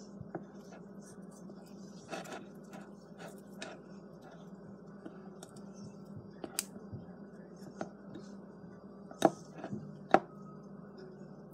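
Plastic spoon stirring and scraping a crumbly flour, salt and water dough in a glass bowl: scattered light clicks and scrapes, with two sharper knocks near the end, over a steady low hum.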